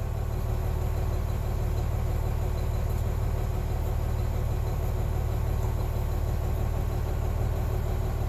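An engine idling steadily: an even low hum that does not change.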